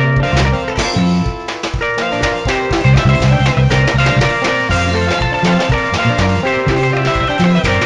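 Live dance band playing an instrumental passage with no vocals: drum kit keeping a steady beat under electric guitars and a bass line.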